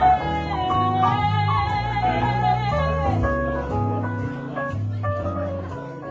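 Woman singing live over electronic keyboard accompaniment, with held chords and bass notes. The music grows quieter toward the end.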